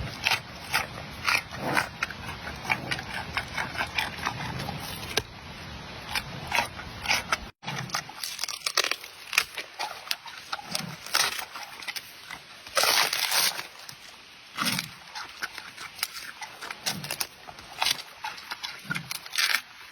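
A panda chewing and crunching its food, with irregular sharp cracks and snaps and a louder rustle about two-thirds of the way in.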